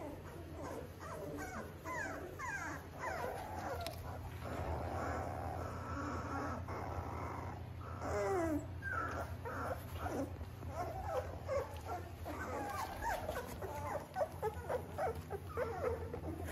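Three-week-old Labrador retriever puppies squeaking and whimpering while they nurse, many short high calls that rise and fall and overlap one another, over a low steady hum.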